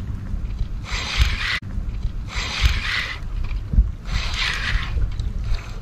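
Fishing reel being cranked in three short spurts, about a second and a half apart, while reeling in a hooked fish, with a low wind rumble on the microphone.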